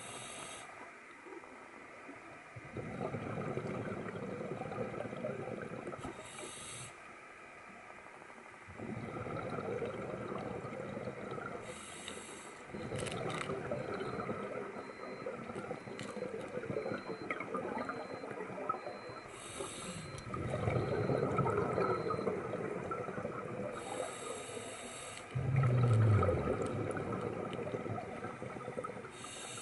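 Scuba diver breathing through a regulator underwater: a short hiss on each inhalation, then a longer spell of bubbling exhaust, repeating about every five to six seconds. A louder low burble comes about four seconds before the end.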